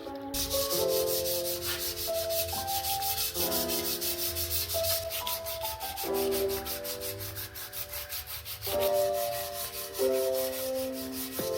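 Hand sanding of an old bicycle part: quick, even back-and-forth strokes, about seven a second, starting just after the sound begins. Lo-fi hip hop music plays underneath.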